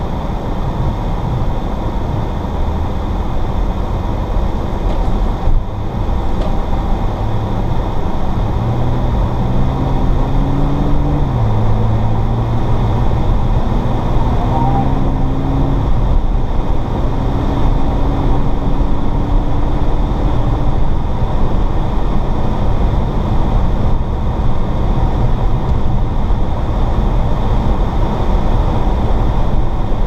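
Inside the cabin of an Audi S4 driving on a snow-covered road: a steady low rumble of tyre and road noise. Under it, the supercharged V6's note rises as the car accelerates, drops suddenly at a gear change about eleven seconds in, then climbs again and holds steady until about twenty seconds in.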